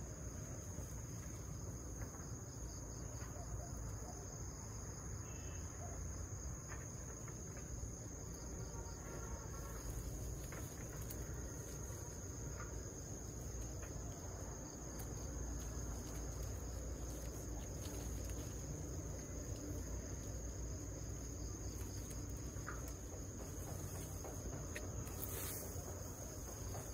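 Insects chirring in one continuous, steady high-pitched drone over a low rumble, with a few faint rustles and taps.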